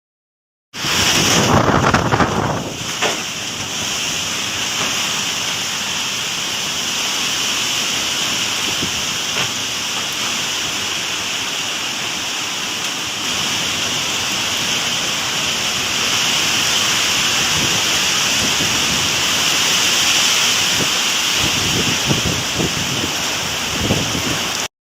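Heavy typhoon rain and wind: a steady loud rush, somewhat stronger in the first couple of seconds.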